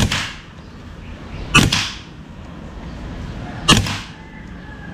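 Semi-automatic PCP air rifle firing three shots about two seconds apart, each a sharp crack with a short tail.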